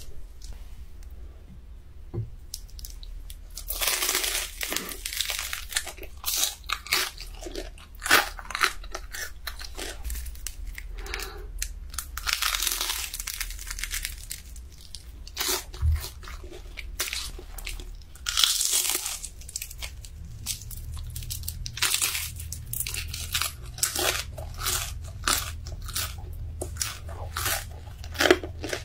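Crisp crunching of a deep-fried dumpling's wrapper being bitten and chewed, over and over, with louder longer bursts of crunching about four, twelve and nineteen seconds in as fresh bites are taken.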